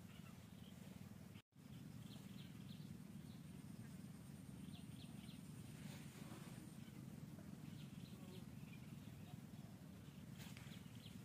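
Near silence: a steady low hum of background ambience, with faint high chirps in short runs of three or four, heard a few times. The sound cuts out for a split second about one and a half seconds in.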